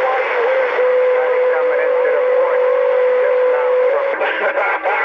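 CB radio receiving a transmission: loud static hiss with faint, garbled voices. A steady whistle tone holds for about three seconds, and near the end the signal breaks up in several short dropouts.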